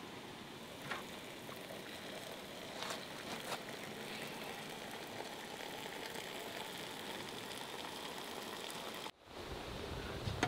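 Hot water running from a samovar's tap into a cast-iron teapot, a steady splashing pour with a few light clicks in the first few seconds. The sound breaks off abruptly about nine seconds in.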